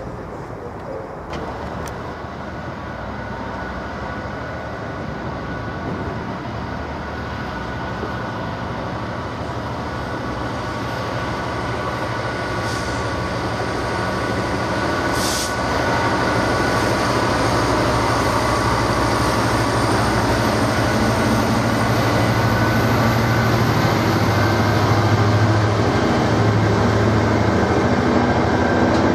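Class 66 diesel-electric locomotive's two-stroke diesel engine growing steadily louder as it approaches hauling a container freight train, then the train rolling past, getting louder about halfway through as the locomotive draws level and its container wagons follow.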